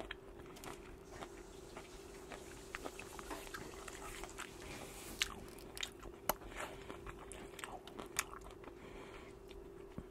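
Close-up chewing and biting of salmon larb with rice, with wet mouth sounds and scattered sharp clicks of a fork against the bowl and plate. A faint steady hum runs underneath.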